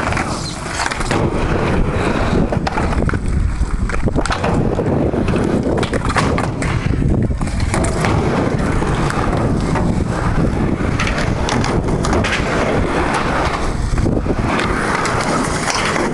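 Skateboard wheels rolling over rough concrete, a continuous rolling rumble with scattered knocks and clacks from the board.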